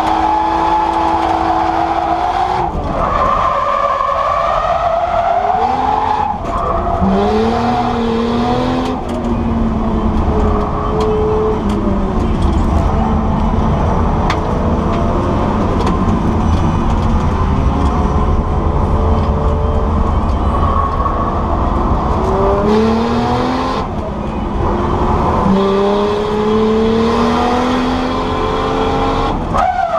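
Nissan R34 Skyline drift car heard from inside the cabin, its engine revving hard and climbing in pitch, then dropping sharply at gear changes or lifts several times. Tyres squeal and skid underneath while the car drifts.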